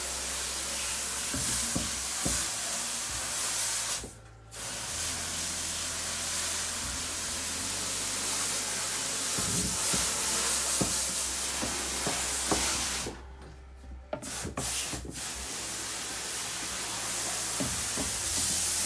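Water hose spraying inside a boat's anchor locker, washing it out: a steady hiss that breaks off briefly about four seconds in and again for a second or two past the middle, with a few small knocks.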